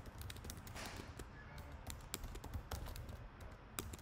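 Computer keyboard being typed on: an irregular run of light key clicks.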